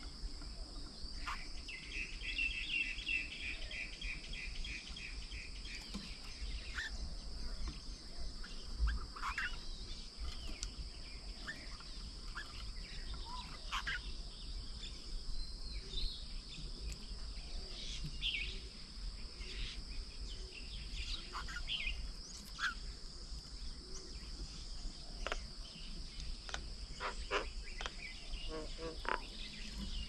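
Steady high-pitched insect drone, with many short bird chirps and calls over it and a rapid trill early on.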